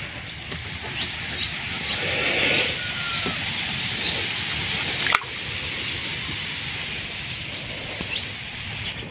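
Water sloshing and splashing as a wet mesh keepnet is handled over the water, with one sharp knock about five seconds in.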